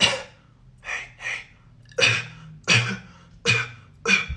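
Beatbox cough snare: a whispered cough done about six times in a row, each a sudden noisy burst that trails off briefly.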